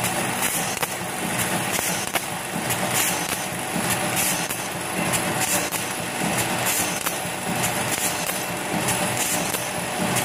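Cable tie machine running: its vibratory bowl feeder rattles and buzzes steadily as it feeds nylon cable ties. Sharp clicks come now and then from the handheld tying gun as it wraps and cuts ties around a wire bundle.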